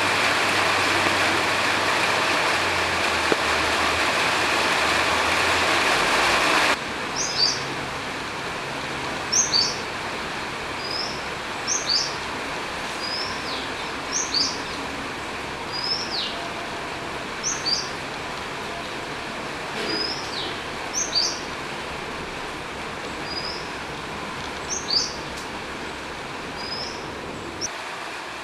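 Steady hiss of rain, loud at first and then suddenly quieter about seven seconds in. Over the softer rain, a bird repeatedly gives short, high, downward-sliding whistled calls, about one every second or two.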